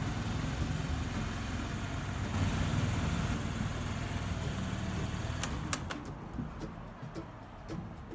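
Yamaha Vino AY02 50cc four-stroke scooter engine idling steadily, just refilled with fresh oil. After a couple of sharp clicks it shuts off about six seconds in.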